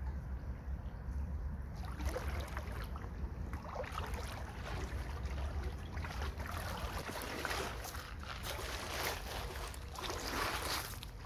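Rubber wellington boots wading through a shallow stream, with a splash at each step from about two seconds in that grows louder near the end. Under it runs a low rumble of wind on the microphone.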